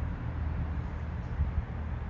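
Steady low rumble of outdoor street background noise, with a brief louder low bump about one and a half seconds in.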